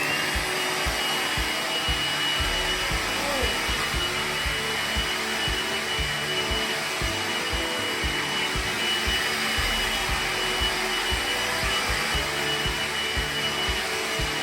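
Makita CL181FDZW 18V cordless stick vacuum switched on, its motor whine rising quickly and then running steadily as a high whine over rushing air.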